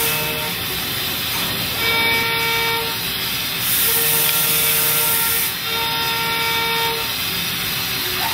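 Steady hiss of coolant spray and cutting as a 25 mm end mill machines a steel part in a Mazak Integrex i-100 Bartac-S multi-tasking machine, under sustained chords of background music that change about every second and a half.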